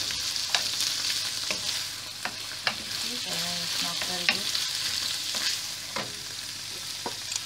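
Chickpeas, carrots and tomato sizzling in hot oil in a frying pan as a wooden spatula stirs them, with sharp taps of the spatula against the pan about once a second.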